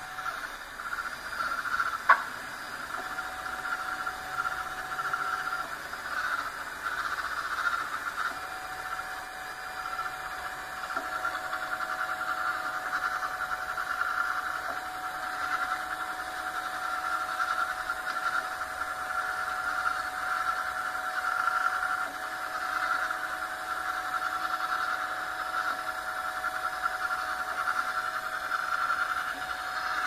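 Ultimaker 3D printer at work printing in wood PLA: stepper motors whine at steady pitches that shift every few seconds as the print head changes moves, over a continuous whir. One sharp click about two seconds in.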